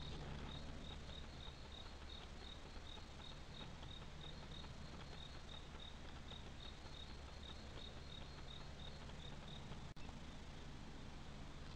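A cricket chirping steadily, about two to three short high chirps a second, stopping about nine seconds in, over a faint steady low hum.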